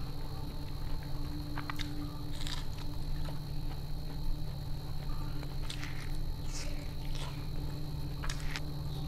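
Eating sounds: fingers picking through chicken curry and rice on a plate, with about half a dozen short, soft wet clicks, over a steady low hum.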